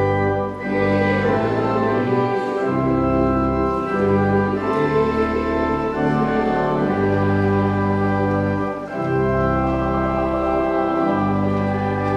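Church organ playing sustained chords over a steady bass line, the chords changing every second or two.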